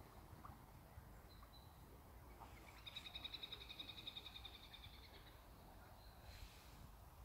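A small bird's rapid trill, a fast run of high notes lasting about two seconds, faint against near-silent background, with a short high chirp before it and another near the end.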